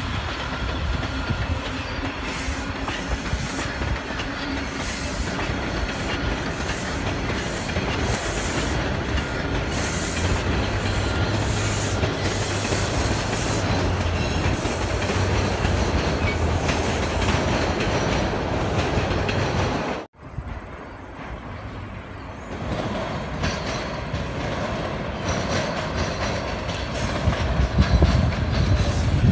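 TTC subway train running past on surface track, the steady noise of its wheels on the rails. The sound breaks off abruptly about two-thirds through, then resumes, quieter at first and growing louder near the end.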